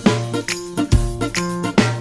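Instrumental background music with a steady beat and bright pitched notes.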